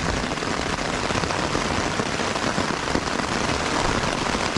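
Steady downpour of rain, a dense even hiss.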